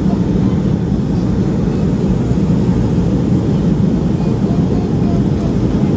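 Steady cabin rumble of a Boeing 757-200 on final approach with flaps extended: engine and airflow noise heard from inside the passenger cabin, deep and even.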